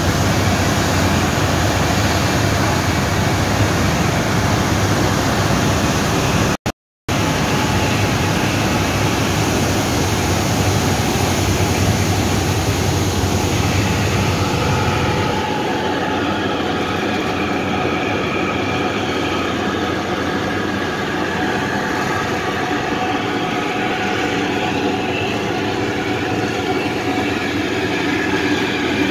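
Ferry underway: the steady rumble of its engines mixed with the rush of the churning wake. It cuts out briefly about seven seconds in. About halfway through, the deep rumble drops back and a steadier hum with several tones comes through.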